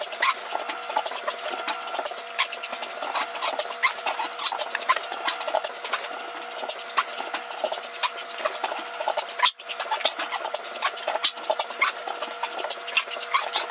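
A small dog's claws clicking and scratching on a hardwood floor, a dense irregular patter, over a steady hum.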